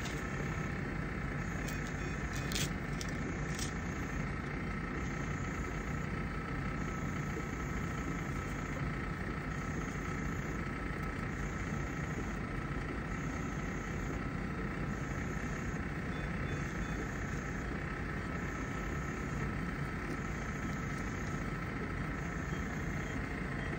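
Steady hum and hiss of hospital room equipment, with a faint high tone that comes and goes every second or two.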